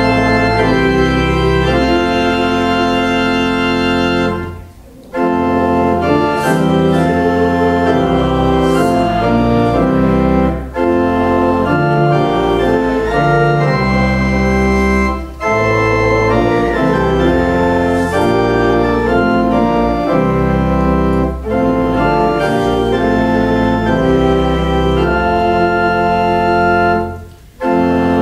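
Pipe organ playing a hymn in sustained chords, pausing briefly between phrases about every five to six seconds.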